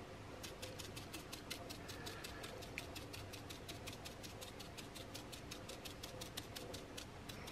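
Faint, rapid tapping, about six light taps a second, of a stiff stippling brush dabbing acrylic paint onto a sand-textured glass jar.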